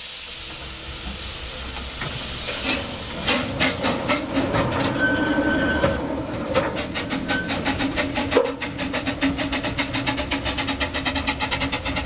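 10¼ inch gauge Hunslet quarry-type steam locomotive moving off, first hissing as steam blows from its open cylinder drain cocks, then exhaust beats that quicken from about two to about six a second as it gathers speed. A sharp knock about eight seconds in.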